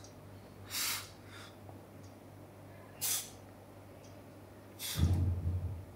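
A weightlifter's forceful breaths out, two short hissing exhales a little over two seconds apart as he presses the dumbbells, then a dull low thump near the end.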